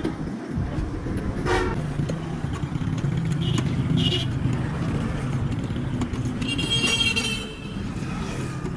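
Road traffic with vehicle engines running steadily and short horn toots; the longest, a high-pitched honk, comes a little before the end.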